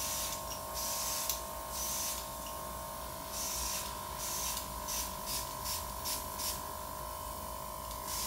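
Nail airbrush spraying in a run of short hissing bursts, over the steady whine of its small compressor.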